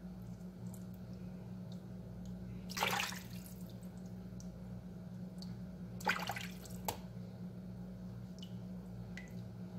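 Water splashing and dripping in a plastic basin as raw chicken hearts are trimmed and rinsed by hand: two short splashes about three and six seconds in, a sharp click soon after, and small drips in between, over a steady low hum.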